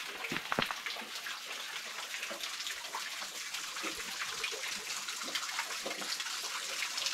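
Stream water trickling and splashing among rocks: a steady run of small splashes, with a few louder ones about half a second in.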